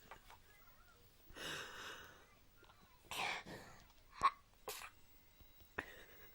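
A sneezing fit: several short sneezes, about a second apart.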